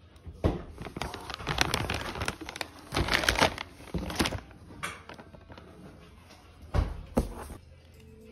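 Plastic food packaging crinkling and rustling as grocery packs are handled and shifted in a cardboard box, with a couple of sharp knocks near the end.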